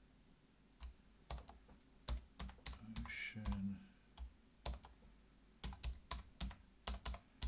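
Typing on a computer keyboard: irregular key clicks, some in quick runs, others spaced out with pauses, as a file path is typed in.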